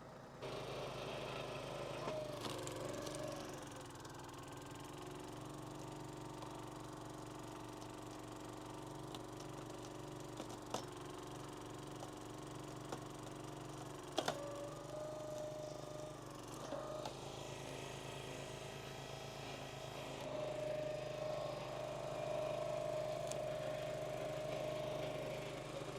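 Gas log splitter's small engine running steadily, its note sagging and recovering a few times as the hydraulics take load, with a couple of sharp knocks.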